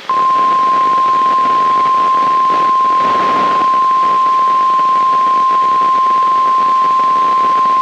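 NOAA Weather Radio 1050 Hz warning alarm tone, the single steady tone that comes before a warning message. It begins abruptly and holds one unchanging pitch, with radio static underneath.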